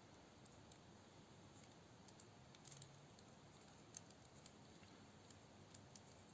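Near silence with a few faint, light clicks of small metal parts and tools being handled, the loudest about four seconds in.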